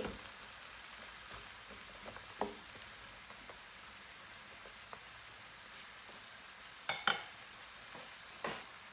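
Pork, squash and eggplant sizzling steadily in a wok while being stirred with a wooden spoon, with a few short knocks of the spoon against the wok, the loudest two about seven seconds in.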